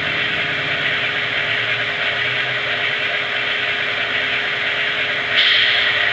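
Sound system of a Broadway Limited Paragon 2 HO-scale Baldwin Centipede model diesel playing its two prime movers idling through the model's small speaker, with its air pumps running. A louder hiss comes in about five seconds in.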